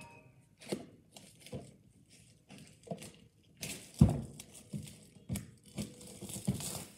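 Cardboard game box being opened by hand: scattered knocks and scrapes, then a loud thump about four seconds in as the box is set down flat on the carpet. After that comes crinkling of the plastic wrapping on the contents.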